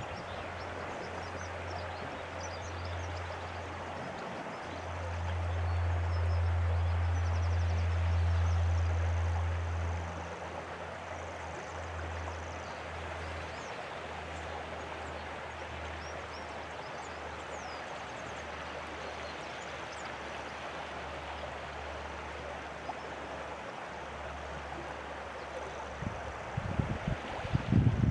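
Steady wash of sea water in a rocky inlet, with faint high bird chirps. A deep rumble of wind on the microphone swells between about five and ten seconds in, and gusts thump against it near the end.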